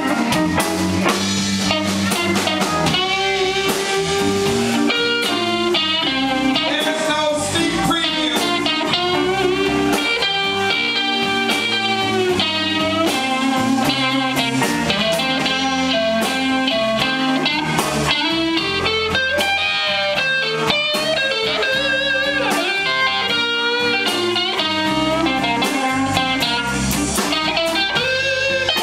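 Live blues band playing, with an electric guitar taking a lead solo full of bent, wavering notes over bass and drums.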